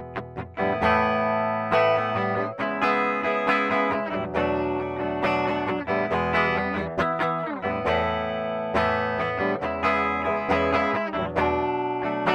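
PRS SE Custom 22 electric guitar played through its bridge pickup with a clean tone: picked notes and chords that ring out, with a few notes bent in pitch.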